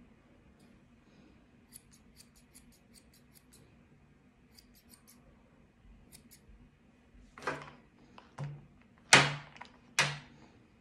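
Grooming scissors snipping a cocker spaniel's coat: a quick run of light snips, then four louder cuts through the hair in the second half, the third the loudest.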